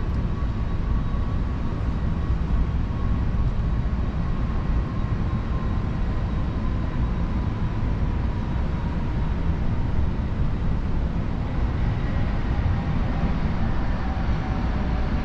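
Steady low rumble of background noise, with a faint thin tone slowly falling in pitch.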